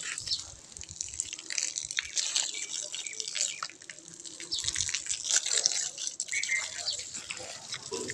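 Water from a hose spraying onto hard, dry dirt ground, an uneven splashing patter. Near the end the jet splashes onto a pile of bricks around a sapling.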